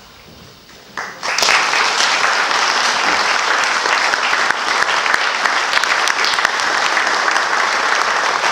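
Audience applause breaking out about a second in after a short quiet, then holding steady and loud: many hands clapping at once.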